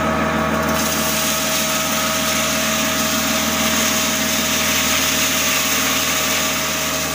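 Maize crushing machine driven by a 10 HP electric motor, running steadily while crushing maize, with a constant hum and hiss that grows brighter about a second in.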